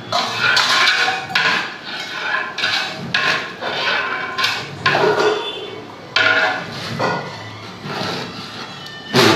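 Long-handled ladle stirring a big batch of biryani rice in a large metal pot, scraping and knocking against the pot's sides and bottom in irregular strokes, with a sharp knock on the pot near the end.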